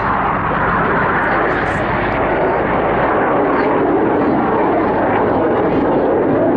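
Aircraft flying past: a loud, continuous engine roar that sinks gradually in pitch over several seconds.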